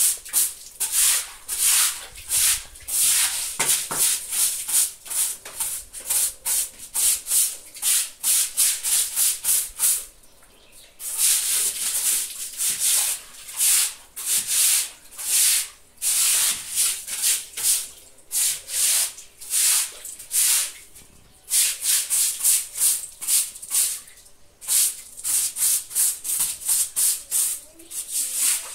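Stiff broom scrubbing wet concrete stairs in quick scratchy strokes, about two or three a second, to scrape off caked-on grime. The scrubbing stops briefly about ten seconds in and again about twenty-one seconds in.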